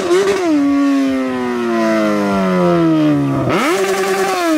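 Yamaha XJ6's inline-four motorcycle engine, its revs falling slowly for about three seconds, then revved sharply about three and a half seconds in, held briefly and dropping again.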